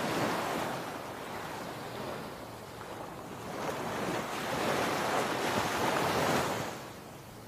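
Sea surf breaking on a sandy beach, the wash of the waves swelling near the start and again from about four to six and a half seconds in, then easing off near the end.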